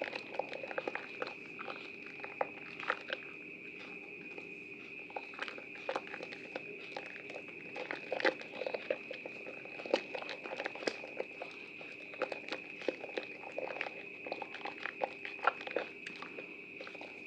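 Soaked bar of Prima Protect White soap being lathered and squished, a continuous run of irregular soft wet crackles and squelches over a faint steady high whine.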